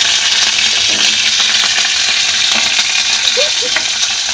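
Curry leaves, dry red chillies and whole mustard seeds sizzling steadily in hot oil in a kadai: the tempering for a dal.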